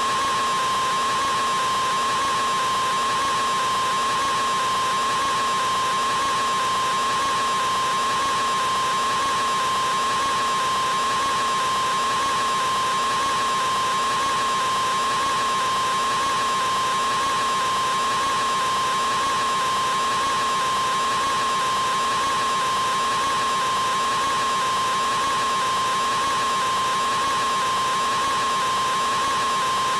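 A man's scream stretched into one unbroken wail that never changes, a steady high pitch over a hissing, noisy wash.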